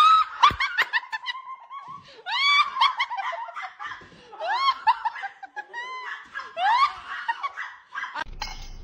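High-pitched laughter in repeated short rising bursts.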